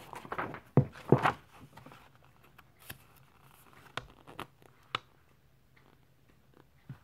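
Paper rustling as the pages of a paperback book are turned and handled, with a few soft clicks and taps. The rustling is loudest in the first second and a half, then fades to faint scattered clicks.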